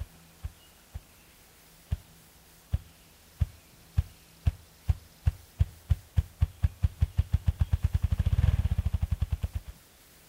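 Male ruffed grouse drumming: deep, hollow wingbeat thumps, spaced and slow at first, speeding up steadily into a fast whir that is loudest just before it stops suddenly near the end. This is the male's spring courtship display to attract a mate.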